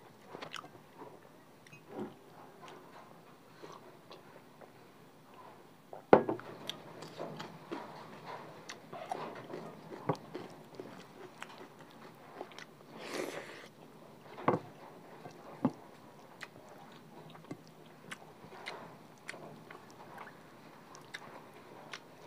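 Close-miked chewing and mouth sounds of a person eating cucumber and rice by hand: scattered wet smacks and small clicks, with a sharper click about six seconds in.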